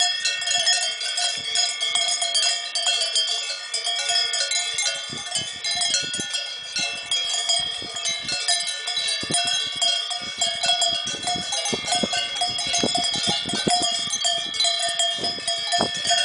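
Cowbells on a herd of cows clanking and ringing continuously, many bells of different pitches overlapping into a constant jangle as the cows walk and graze, with the strikes growing busier partway through.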